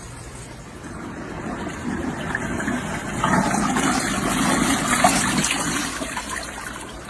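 Water rushing and splashing in the tub of a compact twin-tub washing machine. It swells from about a second in and tails off near the end.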